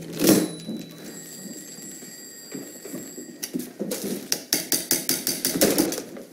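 A small hammer rapping on the metal of an old manual typewriter: a fast, uneven run of sharp clacks, several a second, through the second half. A single loud knock comes just after the start.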